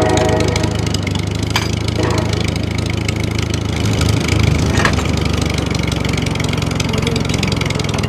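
Small electric motor of a DIY model tractor running steadily with a constant hum, with a couple of light clicks.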